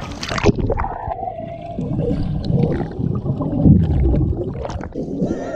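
A splash, then muffled underwater pool sound: swimmers thrashing and bubbles gurgling, with the high end cut off, heard with the microphone under the surface.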